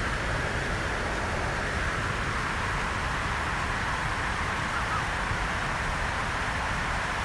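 Steady background hiss with no distinct sounds standing out.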